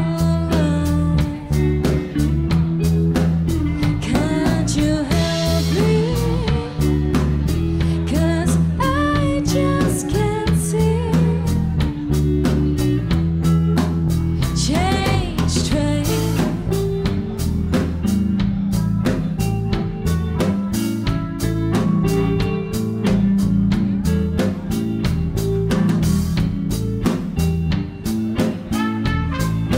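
A band playing a bluesy rock song, with a woman singing over electric guitar, bass guitar and drums. The singing is strongest in the first half.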